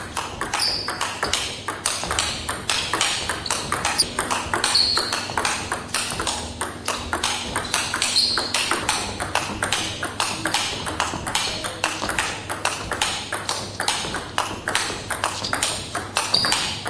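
Table tennis rally in a footwork drill: the ball striking the bats and bouncing on the table in a quick, even run of sharp clicks, several a second, with a few short high squeaks in between.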